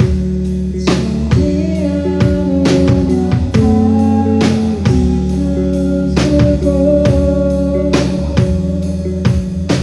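Live rock band playing a song: electric guitar and bass with a drum kit keeping a steady beat of cymbal and drum hits.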